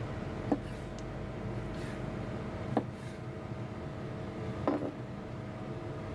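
Kitchen knife slicing through sea cucumber and knocking on a plastic cutting board three times, about two seconds apart, over a steady machine hum.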